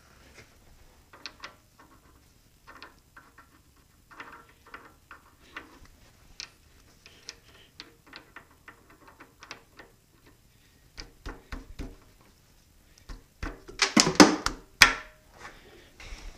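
Steel change gears and parts of a South Bend 13-inch lathe's gear train clicking and clinking as they are handled and fitted onto their studs. A flurry of louder, briefly ringing metal clanks comes near the end.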